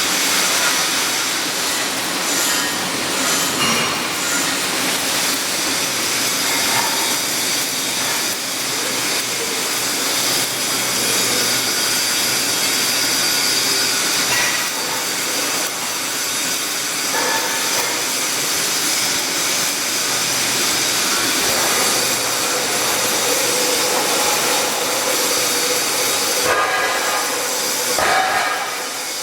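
Welding arc running on carbon steel pipe: a steady, loud, crackling hiss with a couple of brief breaks near the end.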